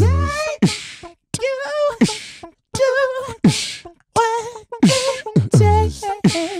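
Beatboxing into a handheld microphone: vocal bass kicks that drop in pitch, hissy snare-like hits, and short warbling pitched vocal sounds, with brief gaps between phrases.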